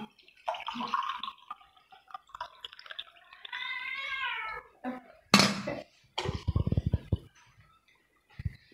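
Water poured from a steel tumbler into a steel pot of soaked rice and milk, splashing and dripping. About two-thirds through there is a loud sharp knock followed by a rapid run of knocks, like the tumbler clattering against the pot.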